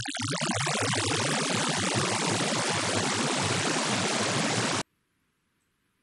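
Computer-generated random wavelet sequence: short tone blips at scattered pitches, sparse at first, quickly growing denser until they merge into a steady hiss like white noise, then cutting off abruptly near the end.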